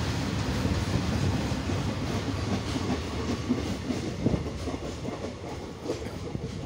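Freight train rumbling past, its wagon wheels clacking over the rail joints. The brake van at the tail goes by and the sound slowly fades as the train moves away.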